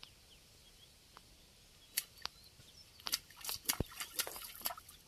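Water splashing and dripping as a fishing net is hauled in by hand from a pond. The splashes are short and sharp: a couple come about two seconds in, and a quick cluster follows in the second half.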